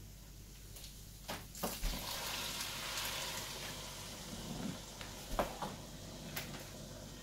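Mugfuls of hot water poured into a pot of fried rice and spices, sizzling for a couple of seconds as the water hits the hot oil. A few knocks of the ceramic mug against the pots come as more water is scooped.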